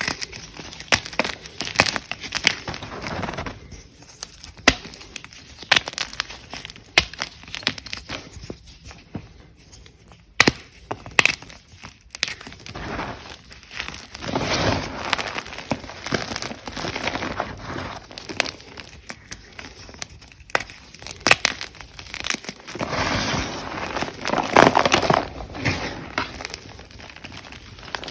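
Ader gym chalk crunching: a rapid, irregular string of sharp cracks and crunches that thickens into denser crunching twice, about halfway through and again near the end.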